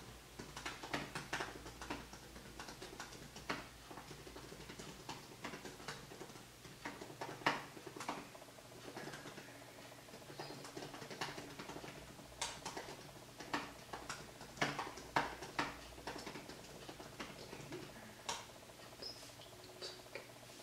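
Typing on a MacBook laptop keyboard: irregular key clicks in short runs with brief pauses between them.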